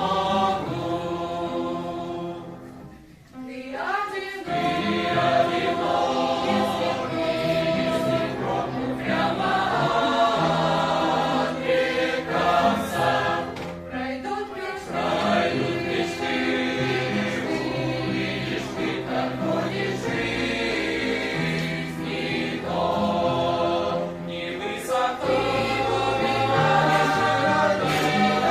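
Church youth choir singing a Christian hymn in Russian, with a short break between phrases about three seconds in.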